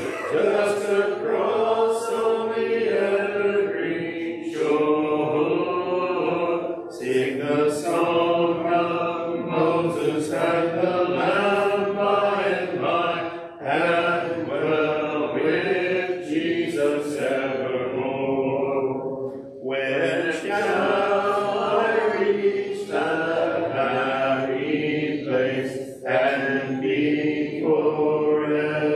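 A church congregation singing a hymn unaccompanied, in long sung phrases with brief pauses for breath between lines.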